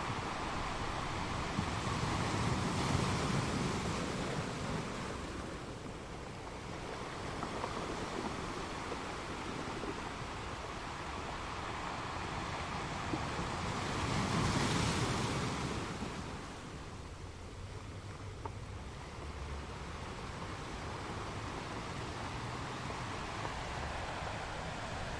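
Sea waves breaking on a rocky shore, with a steady wash of surf between the breakers. Two waves swell up louder, one about three seconds in and another a little past the middle.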